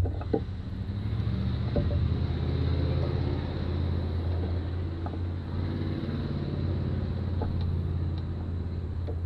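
A sharp knock, then a steady low engine hum with slight swells.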